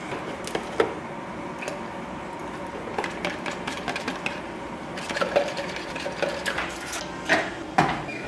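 Irregular clicks and light knocks of kitchen handling as an iced coffee is mixed in a plastic cup: a spoon tapping the cup, and a bottle and cup being picked up and set down, with a couple of louder knocks near the end.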